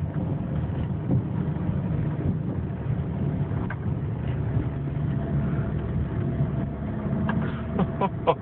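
Car running on the road, heard from inside the cabin as a steady low rumble, with a few short clicks near the end.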